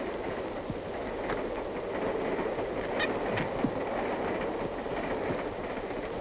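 Steady running noise of a moving passenger train heard from inside a sleeping car, with a few small clicks about three seconds in.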